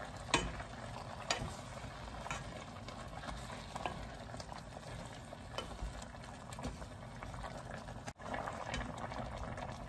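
Wooden spoon stirring a simmering pot of curry with chunky vegetables. The spoon knocks against the pot now and then over a steady bubbling, with a brief dropout near the end.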